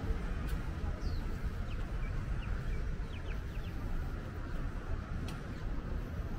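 Street ambience: a steady low rumble of road traffic, with a few short, high bird chirps in the first half.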